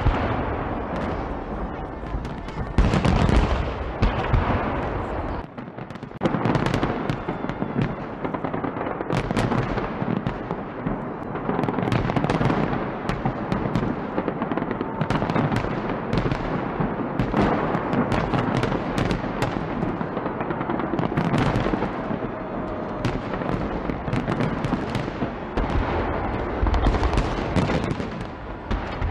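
Fireworks display: a dense, continuous run of shell bursts and crackling with heavier booms among them, loud throughout, with a short lull about five seconds in.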